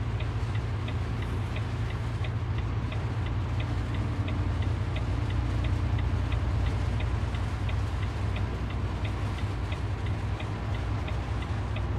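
Cabin noise of a vehicle driving on a wet highway: a steady low engine and road rumble with tyre hiss, and a steady fast ticking of about three ticks a second.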